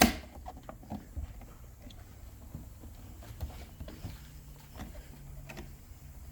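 Plastic mirror cap being pressed and worked onto a Holden VF Commodore side-mirror housing: one sharp snap right at the start, then scattered light taps and clicks as the plastic is handled.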